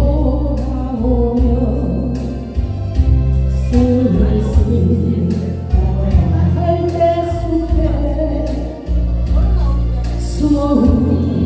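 A singer performing a Korean trot ballad over a karaoke backing track with a steady drum beat.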